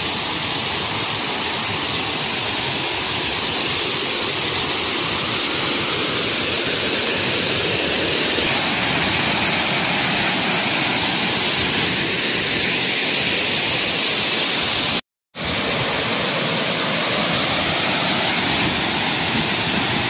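Waterfall in spate, heavy muddy water pouring and crashing over rock boulders in a steady rush of noise. It cuts out completely for a split second about fifteen seconds in.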